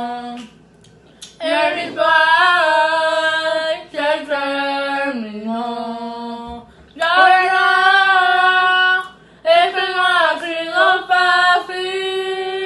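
Two young women singing a Spanish-language pop song together without accompaniment, each holding an ice cube in her mouth, in long held phrases broken by short breaths.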